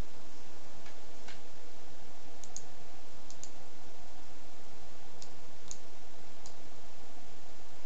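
Computer mouse buttons clicking: about eight scattered sharp clicks, some in quick pairs, over a steady background hiss.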